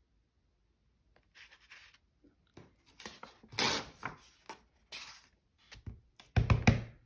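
Paper rustling and scraping as a loose sheet of paper and hands slide over a journal on a cutting mat, ending in a cluster of dull taps from a clear acrylic stamp block.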